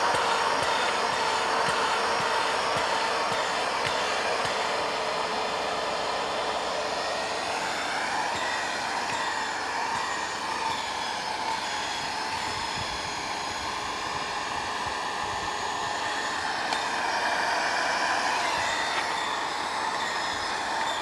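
Electric hand drill running steadily with a whine, boring into the fibrous trunk of a palm tree; its pitch shifts a few times.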